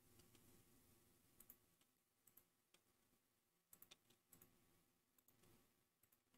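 Near silence, with a few faint, scattered clicks of a computer keyboard and mouse.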